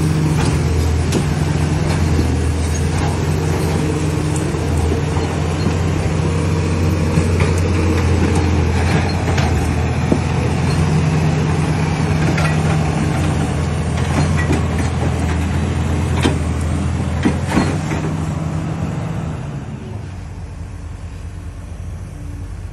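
A large engine running steadily with a low hum, with scattered knocks and clicks over it; it grows quieter about nineteen seconds in.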